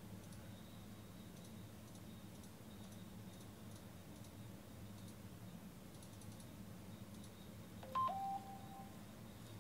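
Faint scattered computer clicks over a low steady room hum, then, about eight seconds in, a short electronic beep that steps down from a higher note to a lower one and fades out under a second later.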